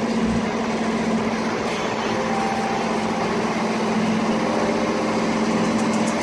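Engine-driven welding generator running steadily with a constant drone.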